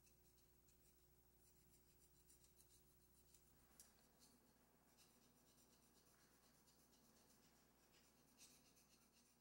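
Faint, irregular scratching of a small hard object scraped on a stone wall, close to near silence. A low background hum stops about three seconds in.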